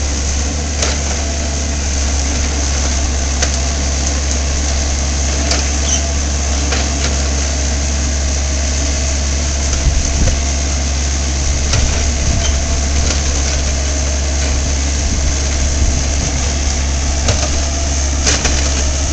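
Mini excavator's diesel engine running steadily as the bucket digs at a tree's roots, with a few short knocks through it.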